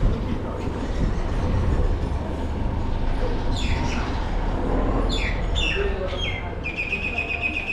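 Small birds chirping several times in the second half, with short falling chirps and a rapid trill near the end, over a steady low rumble.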